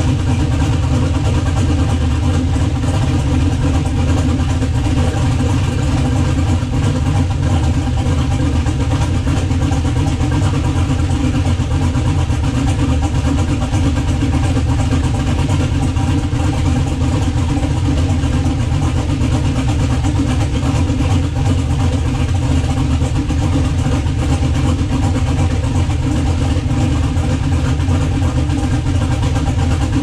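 6.0-litre LS V8 engine idling steadily, firing on all eight cylinders with its dead miss cured: three injectors that weren't injecting have been replaced.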